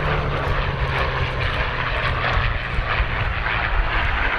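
Two CAC CA-18 Mustangs' Packard Merlin V-12 piston engines droning steadily as the pair flies past in formation, with a low engine note that fades about a second and a half in.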